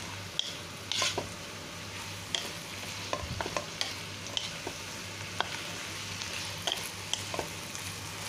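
Choy sum and tofu sizzling in a non-stick pan as they are stir-fried, with irregular clicks and scrapes of a wooden spatula against the pan.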